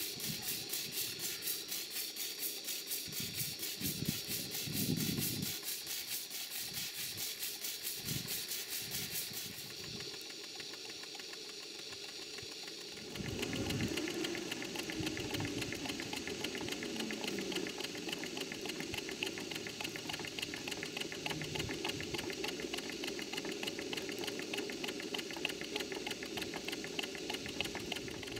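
Stuart Models 5A single-cylinder model steam engine running on live steam: a fast, even chuffing of exhaust beats over a steady hiss of steam, louder from about halfway through.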